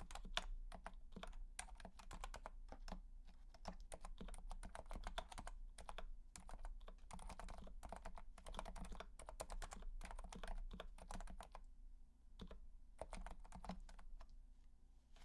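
Typing on a Realforce RGB TKL Topre electrocapacitive keyboard with MX-stem sliders, 55g domes and GMK doubleshot keycaps: a continuous run of irregular keystrokes that thins out to scattered presses after about twelve seconds.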